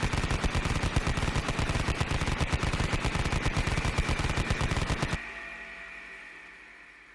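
Sound effect of a Vulcan-style rotary machine gun firing one continuous rapid burst of about five seconds over a steady whine. The firing stops suddenly and the whine fades away.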